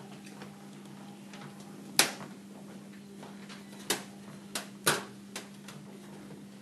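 Handling noise from wiring work in a metal fluorescent troffer: about five sharp clicks and taps as wires and the bar connector are handled, the loudest about two seconds in and the rest close together a little past the middle. A steady low hum sits underneath.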